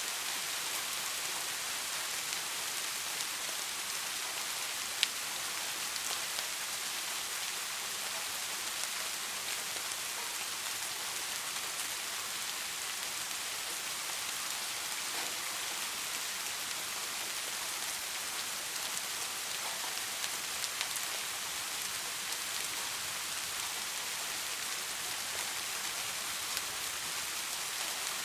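Steady rain falling, an even hiss with scattered individual drops ticking, and one sharper drop click about five seconds in.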